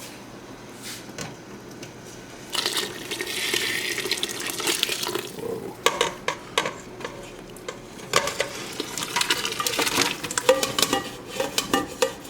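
Water running or pouring for about three seconds, then a string of sharp clinks and knocks of metal pots and utensils.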